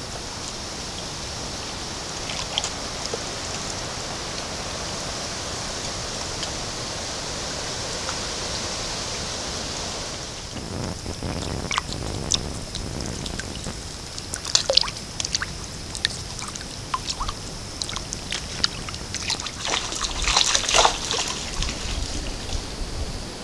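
Shallow swamp water splashing and dripping as white ibises wade and probe with their bills. A steady high hiss runs for about the first ten seconds, then comes a run of sharper, irregular splashes and drips.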